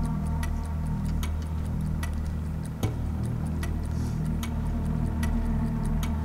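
Background music bed: a steady low drone under a ticking, clock-like beat of about two ticks a second, with one brief thump about three seconds in.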